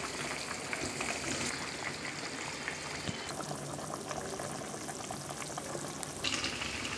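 Egg and potato curry boiling in an open pot: a steady bubbling with many small pops.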